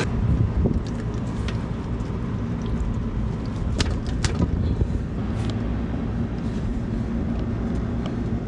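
Steady low machine rumble with a faint hum, with a few light clicks and taps from wiring being handled around the compressor.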